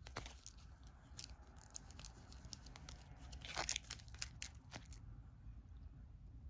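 Board game cards being handled, giving scattered faint clicks and rustles that bunch together about three and a half seconds in and stop about five seconds in.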